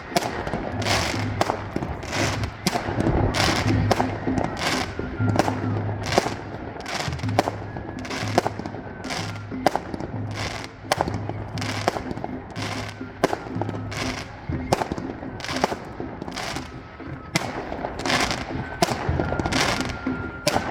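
Fireworks shells bursting in quick, irregular succession, one to two sharp bangs a second, with music playing underneath.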